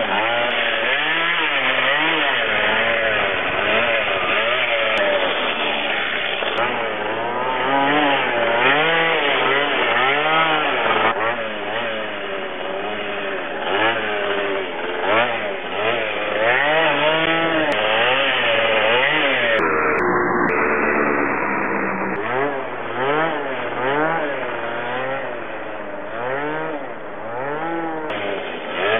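Yamaha Aerox scooter's small two-stroke engine revving up and down over and over as the throttle is worked to hold a wheelie, a buzzing note that rises and falls every second or two.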